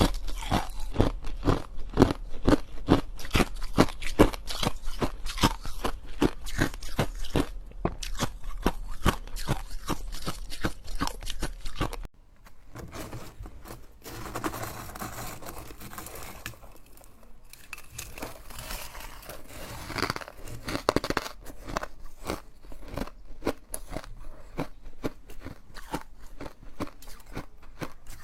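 Ice being bitten and chewed close to the microphone, as a quick, even run of loud crunches. About twelve seconds in the sound changes abruptly to quieter, softer crunching with scattered clicks.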